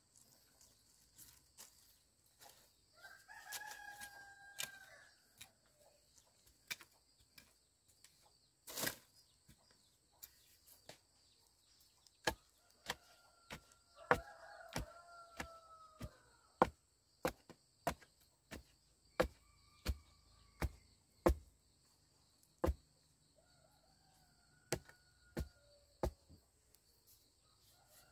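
A rooster crowing four times, over a run of sharp knocks that come about once a second through the second half.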